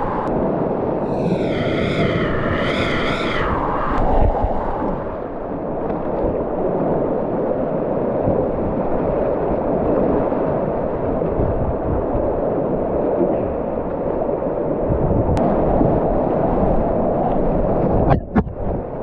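Whitewater rushing and splashing around a kayak. About one to three seconds in come two wavering whoops from a person's voice. Near the end the sound breaks up into brief gaps as the camera dips under the water.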